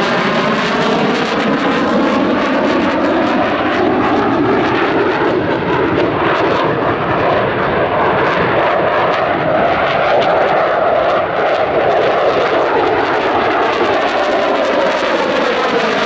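Saab JAS 39 Gripen single-engine jet fighter passing in a display flight, its engine making a loud, steady roar. A hollow tone sweeps down through the roar early on and back up near the end as the jet moves past.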